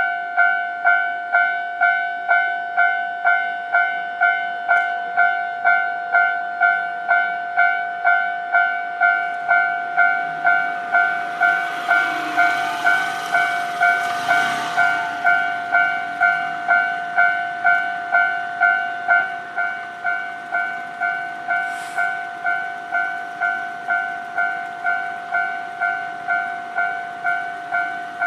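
Japanese level-crossing warning bell ringing steadily, a two-tone electronic clang repeating about twice a second. About eleven seconds in, a Nankai electric train runs over the crossing, and its wheel and motor rush swells under the bell for a few seconds and then fades.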